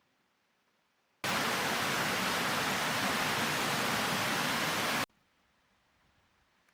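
A loud, steady rushing noise, even like hiss or pouring water, that cuts in about a second in and cuts off abruptly about four seconds later.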